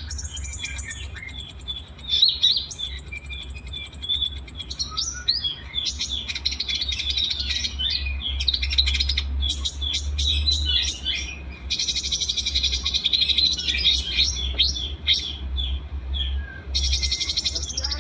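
A combination of small songbirds' songs: dense, rapid chirps and high trilling phrases, some held for a second or two, overlapping throughout, over a steady low hum.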